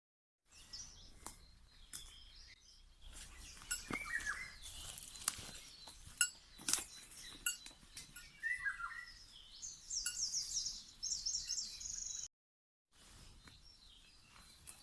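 Small songbirds chirping and calling, with a fast high trill about ten seconds in, over scattered light clicks and rustles. The sound cuts out completely for a moment near the start and again about twelve seconds in.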